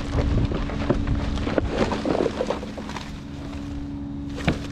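Rustling and light knocks of items being handled in a trash bag, over the steady hum of a running vehicle engine and wind buffeting the microphone. A single sharp click near the end.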